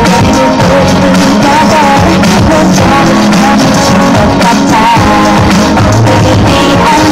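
Loud pop dance music with a sung vocal line over a steady beat, played through outdoor stage speakers.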